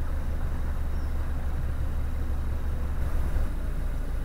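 A narrowboat's diesel engine running, a steady low rumble with a hiss above it that eases slightly about three and a half seconds in.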